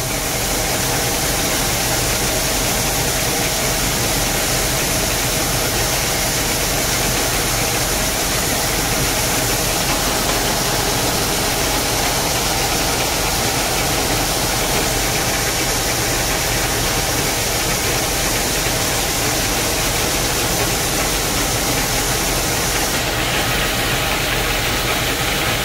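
Fendt tractor engine and PTO-driven Akron grain-bag extractor running steadily, its auger unloading grain into a semi trailer, heard from inside the tractor cab as an even mechanical hum and hiss.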